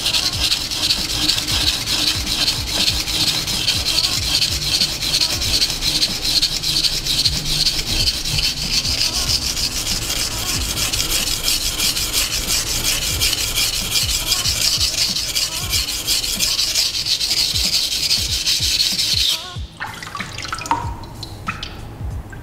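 A Nishida kurouchi petty knife's blade is stroked back and forth on a wet whetstone, making a steady gritty rasp as steel is ground away to remove a chip in the edge. The rasping stops abruptly about three seconds before the end.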